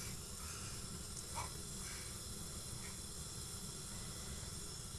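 Steady background hiss with a low rumble, and a few faint short sounds in the first three seconds.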